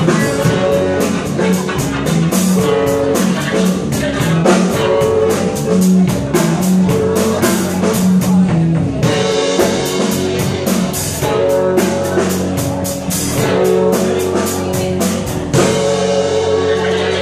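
Live band playing amplified music: electric guitar, electric bass and drum kit, with a steady beat.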